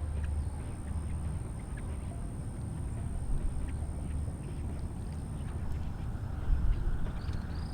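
Low rumbling noise on the microphone with scattered faint clicks.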